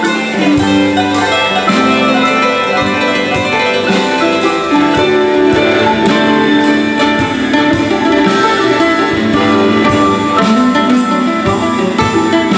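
Live band playing loudly, with electric and acoustic guitars, keyboard and saxophone over a steady drum beat.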